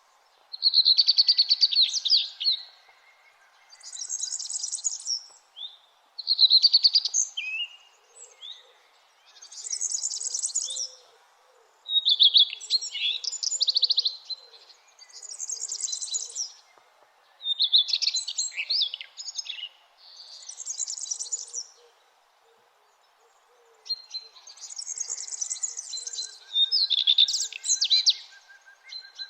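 Songbirds singing in short repeated phrases, about one every two seconds. High, hissy phrases alternate with lower, more varied warbling ones, with a pause of about two seconds near the end.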